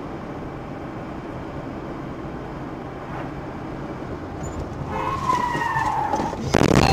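Car driving with steady road and engine noise; about five seconds in the tyres squeal in a skid, a screech that falls slightly in pitch over about a second. Near the end a loud crash of impact cuts in.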